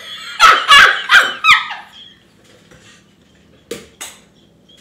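A woman's high-pitched, squealing laugh in four loud bursts, followed by two short, softer ones near the end.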